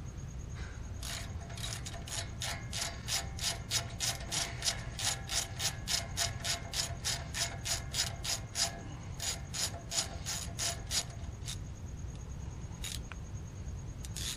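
Socket ratchet clicking in a quick, even run, about three or four clicks a second, as a 12 mm socket backs out the upper brake caliper bolt. The clicking breaks off briefly near the middle, stops about eleven seconds in, and a couple of stray clicks follow.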